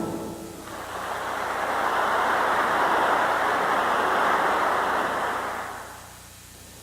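A steady rushing noise, like wind or surf, that swells in about a second in, holds for several seconds and fades out near the end.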